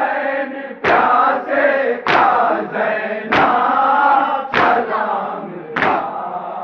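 A chorus of men chanting a nauha, a Shia lament, while a crowd beats matam, striking their chests with open hands in unison. The beats land together in one sharp slap about every second and a quarter, five times, keeping time with the chant.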